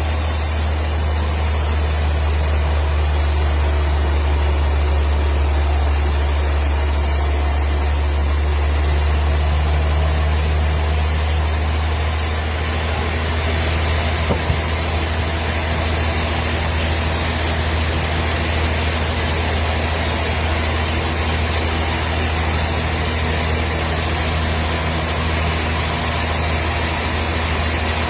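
Engine of a wood processing machine running steadily with a deep, constant hum, with one brief click about halfway through.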